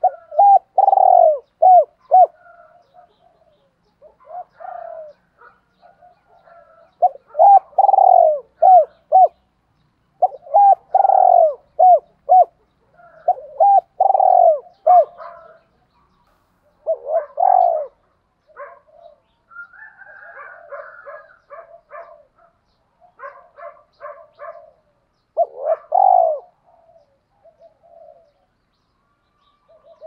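Spotted dove cooing: about six phrases of several deep, repeated coo notes, each phrase a second or two long. Fainter, higher chirping fills the gaps between phrases.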